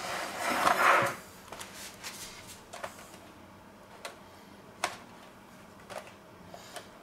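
Gloved hands handling an upturned metal springform cake tin on a counter: a short scraping rustle, then a handful of scattered light taps and knocks on the tin, one a little before five seconds louder than the rest.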